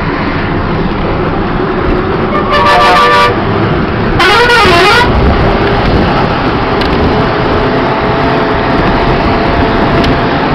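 Bus engine and road noise while riding. A horn sounds twice: a steady blast about two and a half seconds in, then a louder blast about a second later whose pitch warbles up and down.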